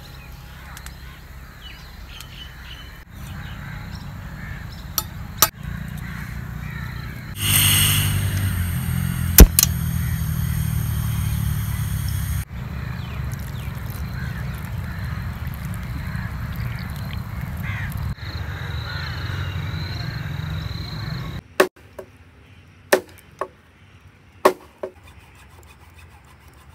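Bird calls over a steady low rumble. A louder hiss runs from about eight to twelve seconds in, with one sharp knock, and a few sharp clicks come near the end.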